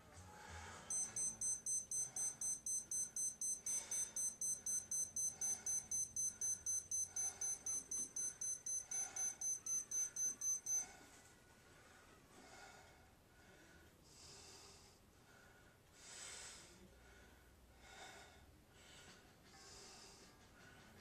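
A high electronic beeping at about four quick beeps a second starts about a second in and stops about eleven seconds in, like a timer alarm. Under it and after it comes the heavy, forced breathing of a man straining on a leg press.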